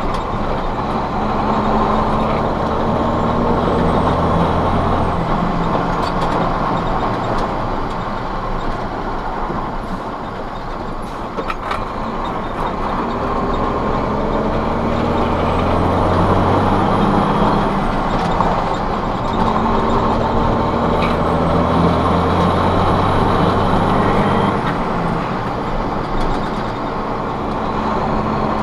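Heavy truck's diesel engine and road noise heard inside the cab as it drives along. The engine pulls harder in three spells, each with a faint high whistle rising and then fading.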